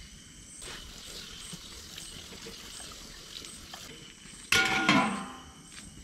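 A faint steady hiss from the cooking, then about four and a half seconds in a single sudden metal clang of cookware that rings briefly and fades.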